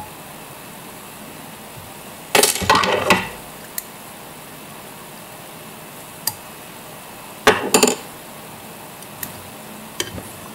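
Small metal fly-tying tools clinking and rattling at the vise while the thread is whip-finished at the fly's head: two short bursts of clinks, about two and a half and seven and a half seconds in, with a few light ticks between.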